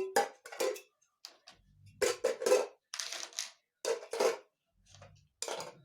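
Toy blocks dropped one after another into a metal tin, clattering in a string of short bursts.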